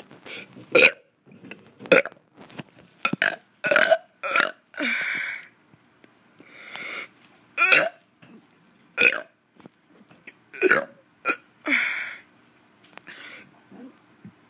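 A child burping over and over: about a dozen short, loud burps a second or so apart, with a couple of longer breathy hisses between them.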